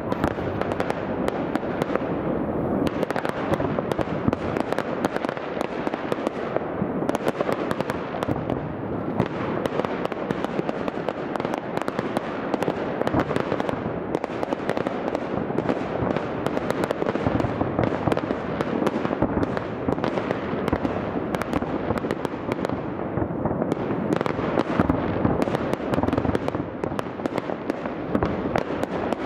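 Aerial fireworks heard from about two kilometres away: a dense, continuous barrage of overlapping bangs and crackles, with many shells going off at once.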